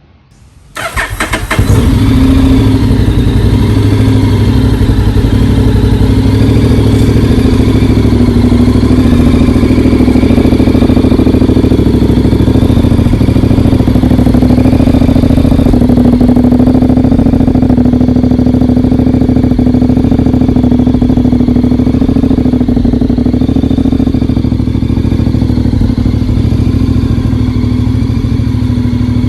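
Honda X-ADV 750 parallel-twin engine with a MIVV slip-on exhaust, started about a second in with a brief crank, then idling steadily through the exhaust. The idle eases slightly lower near the end.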